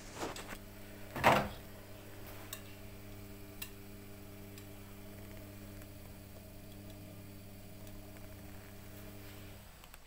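Super General SGW6100NLED front-loading washing machine humming steadily at the very end of its wash cycle, the hum cutting off shortly before the end. A sharp knock comes about a second in, louder than the hum, with a smaller one just before it.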